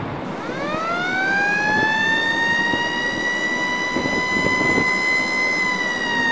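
A single loud, high horn tone that slides up in pitch over about a second, then holds steady and sags slightly near the end.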